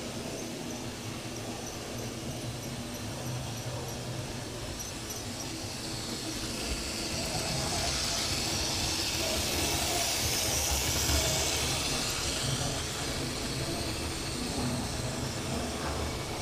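Analogue model train locomotives running round the track: a steady motor whirr and wheels on rail. It grows louder in the middle with a rising, then fading hiss as a train passes close by.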